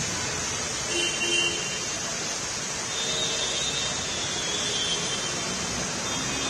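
Steady hiss of rain and of car tyres moving through a waterlogged road in slow traffic. Faint brief tones come about a second in and again from about three seconds in.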